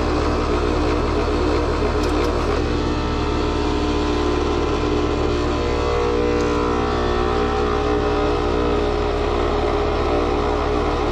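A heat pump's outdoor unit running, its compressor sounding horrible: a loud, steady mechanical drone over a low hum, with a couple of faint clicks about two seconds in. There is no hissing from the reversing valve, and the technician takes the noise for an internal mechanical failure of the compressor, which is barely pumping.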